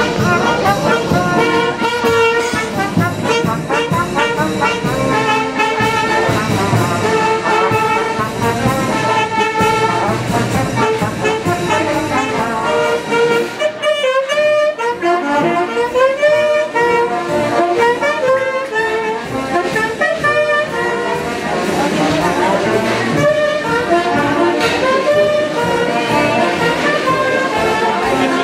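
Brass band music, trumpets and trombones playing a lively melody with saxophones, dipping briefly about halfway through.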